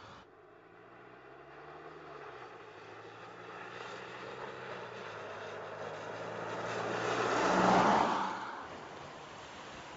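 Mercedes-Benz E-Class All-Terrain estate driving up and passing close by: its engine note and the hiss of its tyres on the wet road build steadily to a peak near the end, then fall away quickly.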